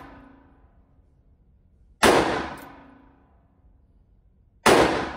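US Arms Abilene .44 Magnum single-action revolver fired twice, about two and a half seconds apart. Each sharp report rings off for about a second in the reverberant indoor range, and the tail of an earlier shot is fading at the start.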